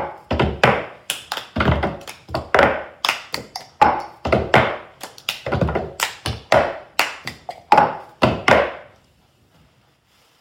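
Cup-rhythm game: several plastic cups tapped, slapped down on a cloth-covered table and passed around, mixed with hand claps, in a quick steady rhythm. The rhythm stops about nine seconds in.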